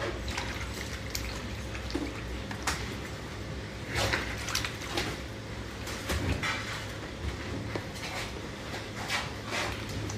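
Cleaned hairtail fish being put into a marinade: scattered wet splashes and sloshing of liquid, with occasional knocks of dishware, the loudest about four seconds in.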